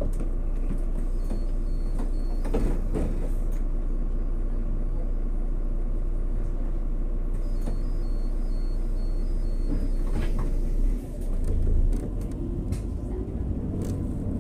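Irisbus Crealis 18 articulated bus with a natural-gas engine, heard running with a steady low hum while a door-warning beeper sounds in two runs of short high beeps. About eleven seconds in there is a brief surge and the engine note grows heavier.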